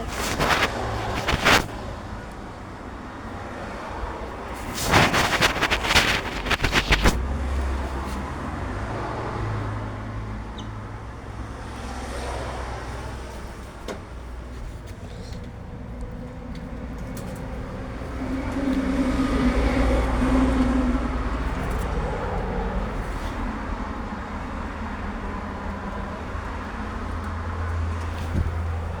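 Motor vehicle engine running with a steady low drone that grows louder for a few seconds midway. Sharp knocks and clatter of handling come near the start and again about five to seven seconds in.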